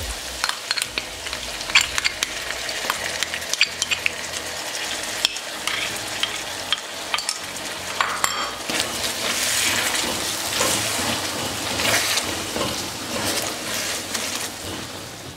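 Chickpeas, spices and freshly added yoghurt sizzling in hot oil in a wok while a spatula stirs and scrapes against the pan, with frequent small clicks. The sizzle grows fuller about halfway through as the yoghurt is stirred in and cooked down until its water dries off.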